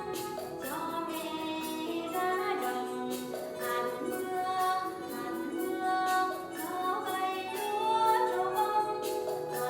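A recorded children's song playing: a sung melody over instrumental accompaniment with a steady percussion beat.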